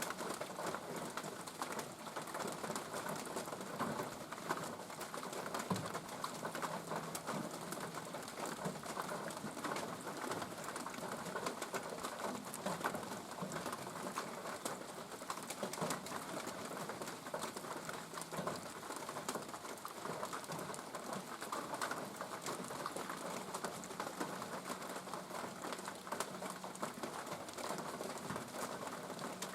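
Steady summer rain pattering and dripping, a dense run of small drop ticks. Low bird cooing comes in at times under the rain, about a fifth of the way in and again later.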